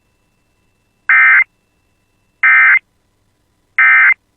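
Emergency Alert System end-of-message signal: three short bursts of SAME digital data, each a rapid electronic buzzing warble of about a third of a second, about 1.3 s apart, with silence between them. The bursts mark the end of the tornado warning alert.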